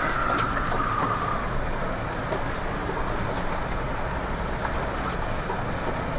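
Jeep Wrangler driving slowly over a bumpy dirt trail, heard from inside the cab: a steady low engine and drivetrain rumble with occasional knocks and rattles. A brief high tone sounds in the first second and a half.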